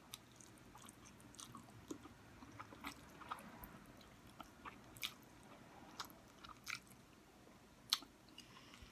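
Close-up mouth sounds of someone eating noodles: soft wet chewing and slurping with scattered small lip smacks and clicks, fairly quiet.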